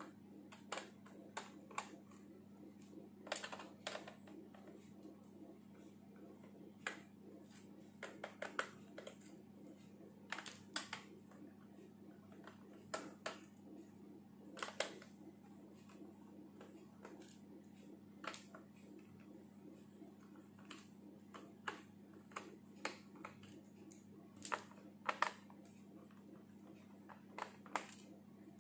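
Irregular small clicks and taps of a screwdriver and fingers working the screws on a laptop's plastic bottom case, in scattered clusters, over a steady low hum.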